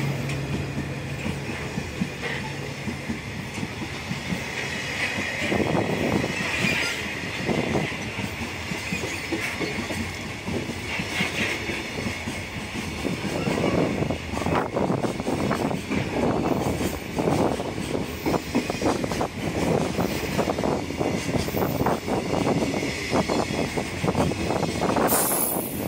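Container freight train's flat wagons rolling past, wheels clattering over the rail joints in a steady clickety-clack that grows busier in the second half.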